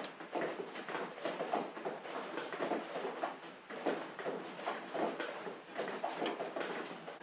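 A hand wrench working the metal fittings around the injectors of a small diesel engine: a steady run of quick, irregular clicks and clinks, several a second, that cuts off suddenly at the end.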